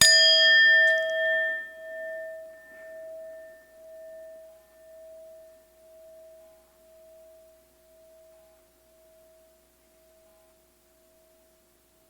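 Singing bowl struck once like a chime, then ringing on with a long, slowly fading tone that pulses about once a second.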